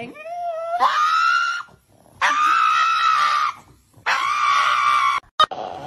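Pug dog screaming: three long, high-pitched cries in a row, the first rising in pitch, each held for about a second.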